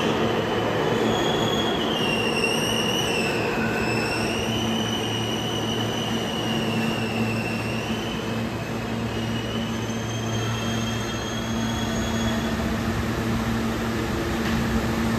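NYC Subway R160A-1 train running, its wheels squealing with a high tone that wavers up and down in pitch over steady rumbling running noise and a low hum. The squeal fades about two-thirds of the way through and returns more faintly.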